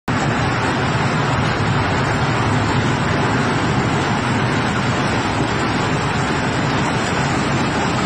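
Tornado winds blowing hard, a loud, steady rushing noise with no let-up.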